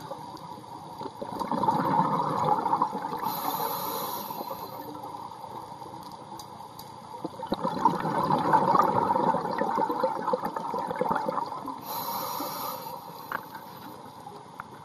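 Scuba diver breathing through a regulator underwater: two long bubbling exhalations, each a few seconds, with a short hiss of inhalation between and another near the end.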